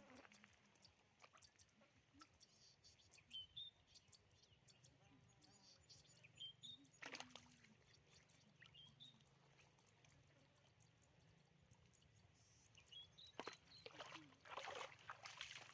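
Faint bird calls: a short rising chirp repeated every few seconds. Brief noises break in about seven seconds in and again near the end.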